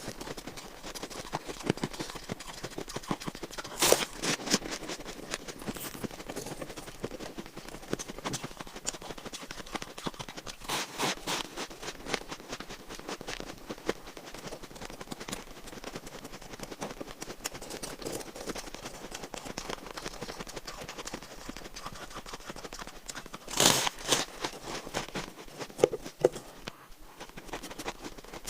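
Close-miked chewing of shaved ice in the mouth: continuous irregular crunching, with louder crunchy bites about four seconds in, about eleven seconds in, and near the end.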